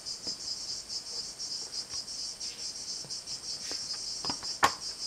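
Summer insects singing steadily, a high, rapidly pulsing chirr. A few light knocks and one sharper tap near the end come from objects being handled on the table.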